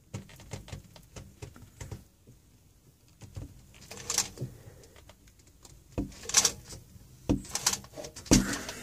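Chain-type filter wrench and hands working a plastic fuel filter canister loose from its adapter: irregular clicks, knocks and short scraping rasps, the loudest in the second half.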